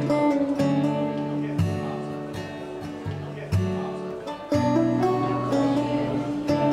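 Acoustic guitar music, chords plucked and strummed about once a second and left to ring.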